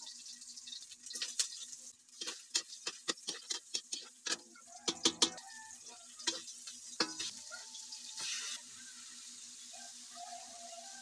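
Chicken gizzards frying in oil with garlic and onion in an aluminium wok: a steady sizzle, with a quick run of taps and clicks as pieces are dropped in by hand, and a short swell of sizzling about eight seconds in.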